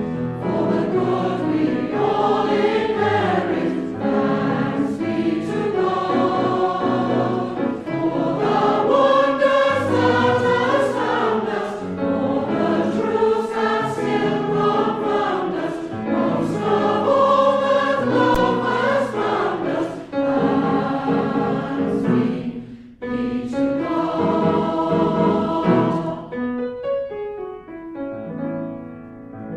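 A congregation sings a hymn in unison with piano accompaniment. About 26 s in, the singing ends and the piano plays on alone.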